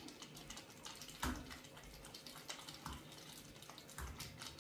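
Faint clinks and scraping of a metal spoon scooping cooked rice in a steel pot, with one sharper clink about a second in, over a low steady hiss.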